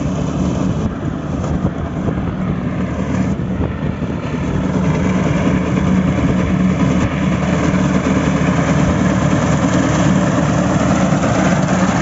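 Al-Ghazi tractor's diesel engine running steadily under load as it drives a front-mounted reaper binder through standing wheat. It grows louder from about halfway through as the tractor comes close.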